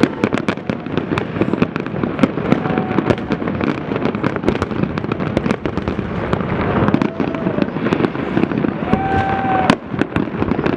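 Fireworks display: a dense, continuous barrage of bangs and crackling, with one especially sharp bang near the end.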